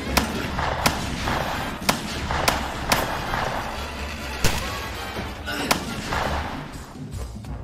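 Handgun shots in a shootout, about seven sharp cracks at uneven intervals, the last about six seconds in, over film score music.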